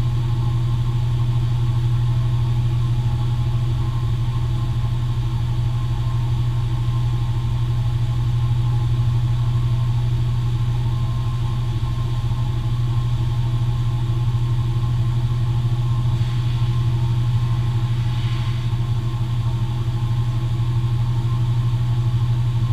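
Dust collector and drum sander running together: a steady, unchanging motor hum.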